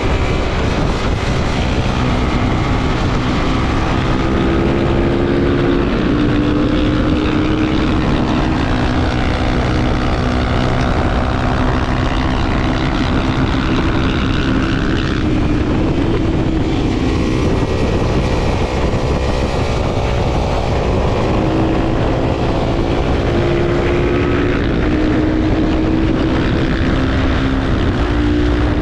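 Honda XR250 Tornado's single-cylinder four-stroke engine running under way, its pitch stepping up and down several times as the rider works the throttle and gears.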